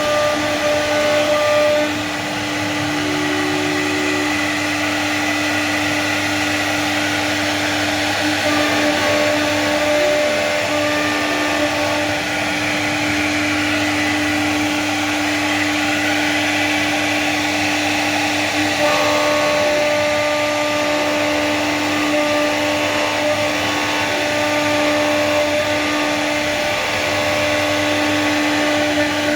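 CNC router spindle running steadily while it cuts a design into PVC board: a constant whine over a broad cutting noise, with a few shorter tones coming and going as the machine moves.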